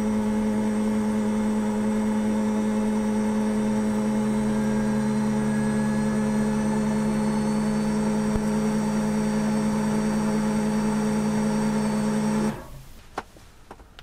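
Hydronic diesel heater running: a steady whirring hum made of several tones, the lower one edging up in pitch a few seconds in, then cutting out abruptly near the end. The cut-out is the heater's safety shutdown, which the owners put down to a fan motor in the burner.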